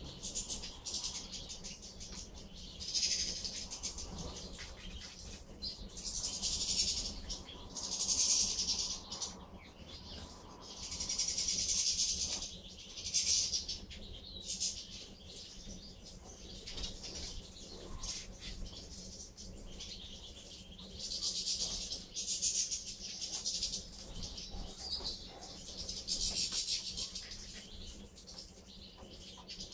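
A flock of European goldfinches twittering and chattering at a feeding spot, the high calls swelling and fading in waves every few seconds, with wing flutters as birds hop and fly between the seed heads.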